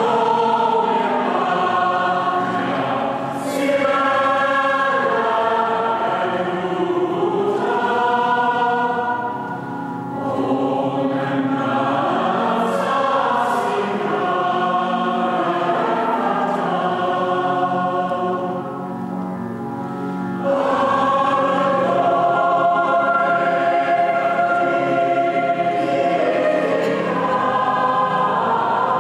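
A choir singing in harmony. It softens briefly about ten seconds in and again a little before the twenty-second mark, then swells back to full voice.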